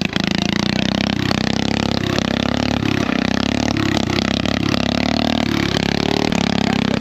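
Riding lawn mower's engine running continuously, its pitch wavering slightly up and down.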